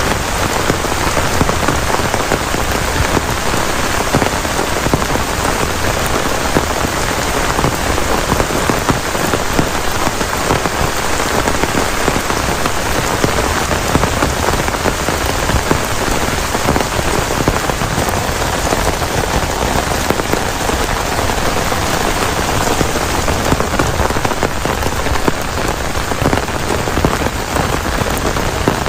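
Heavy rain falling steadily: a loud, dense, unbroken hiss of drops striking a surface.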